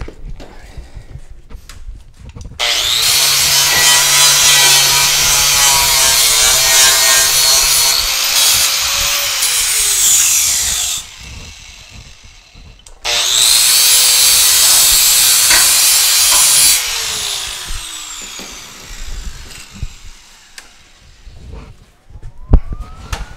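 Angle grinder with a flap disc (flapper wheel) grinding steel clean for welding, in two long passes. The motor winds down after each pass.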